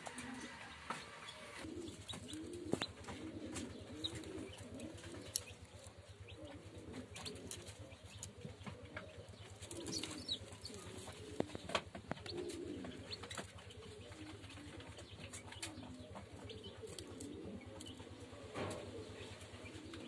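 Pigeon cooing: a long run of low, arching coos, one after another, with scattered sharp clicks and a short high peep about halfway through.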